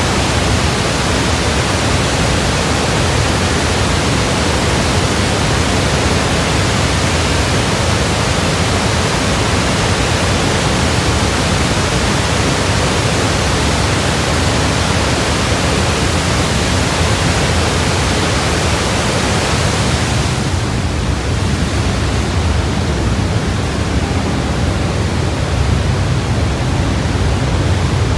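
Niagara's Horseshoe Falls plunging past the portal at the end of a rock tunnel, a loud, steady rush of falling water. About twenty seconds in the rush turns duller, losing its hiss, as it is heard from farther back inside the tunnel.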